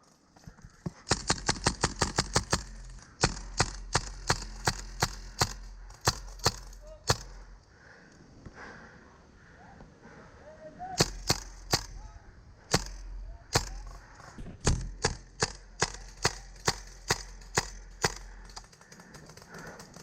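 Airsoft gun firing sharp cracking shots. A fast string comes about a second in, then shots two or three a second, a pause of a few seconds, and a second run of shots.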